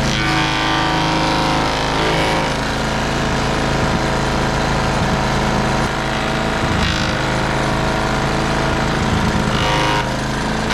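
Small gasoline engine of an old wood chipper running steadily on a replacement carburetor, an even, sustained engine note that sounds pretty good.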